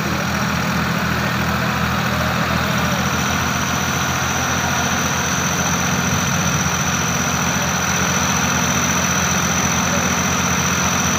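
Diesel engines of a John Deere and a Farmtrac tractor running hard under load as they pull against each other in a tug-of-war. The engines make a steady, low drone, with a thin high whine above it.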